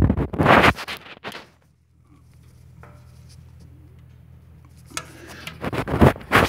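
Steel scraping and clanking from a smoker's sliding vent damper being worked open, in two bursts, one at the start and one near the end, with a low steady hum between.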